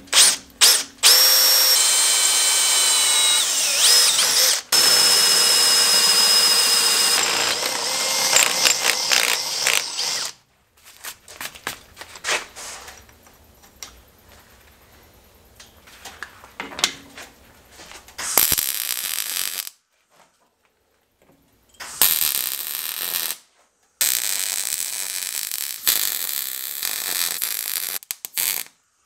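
An electric drill boring through a steel plate: a loud grinding with a high squeal of the bit on the metal for the first ten seconds or so, then stop-start bursts. Near the end a MIG welder's arc crackles steadily.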